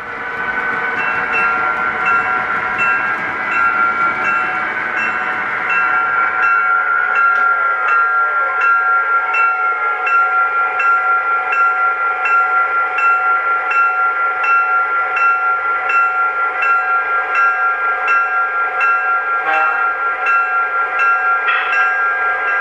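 Onboard sound system of an MTH S scale C&O diesel locomotive model: a locomotive bell ringing in steady strokes a little more than once a second over a continuous pitched engine-and-horn tone.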